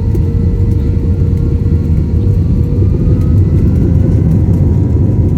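Jet airliner's engines heard from inside the cabin during taxi for departure: a loud, steady rumble with a thin whine that rises slightly in pitch.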